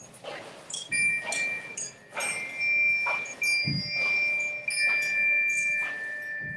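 Bell-like chime tones, struck about three times and left to ring on, overlapping into a held chord, with short brushing sounds between the strikes.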